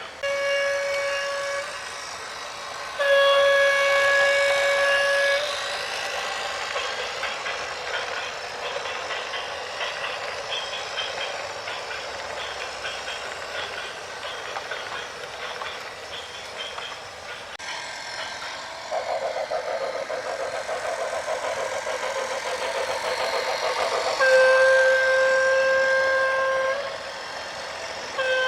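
A vehicle horn sounding long, steady single-note blasts: a short one at the start, one of about two seconds a few seconds in, and another of about two and a half seconds near the end. Between the blasts there is a continuous rushing noise of traffic or moving machinery.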